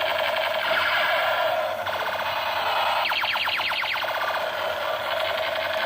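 Electronic toy gun playing its shooting sound effect: a loud, steady electronic tone broken by fast repeating zaps, with a quicker run of them about three seconds in.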